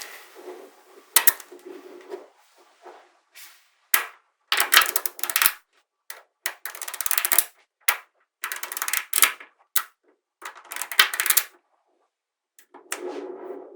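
Small magnetic balls clicking and snapping together, in quick rattling clusters of sharp clicks with short pauses between them.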